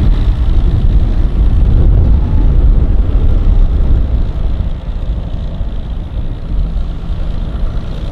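Outboard motor of a center-console boat running under power, its propeller churning the water; a steady low rumble that eases off about halfway through.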